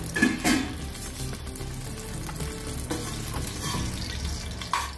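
Whole spices and cumin seeds sizzling in hot ghee in a pressure cooker, with a metal slotted spoon stirring them against the pot. Background music plays underneath.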